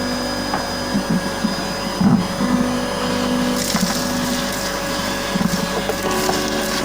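A small electric motor running steadily, having just spun up, with irregular scraping and crackling as limescale deposits are worked off the washing machine's plastic lower tub.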